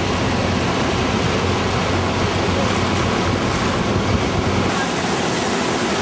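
The Rhine Falls heard up close from below: a loud, steady rushing of falling and churning water. About four and a half seconds in, the low rumble drops away and the sound turns brighter.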